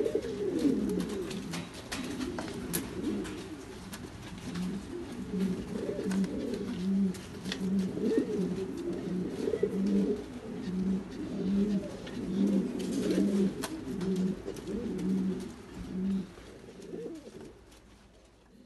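Norwich cropper pigeon cooing with its crop puffed out while bowing and turning in display: low rolling coos, settling into a quick regular run of short coos a little more than one a second, then fading out near the end.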